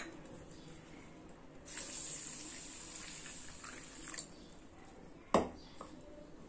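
Water pouring into a ceramic bowl of barnyard millet (bhagar) grains to wash them, a steady hiss lasting about two and a half seconds that starts nearly two seconds in. A single sharp knock follows about five seconds in.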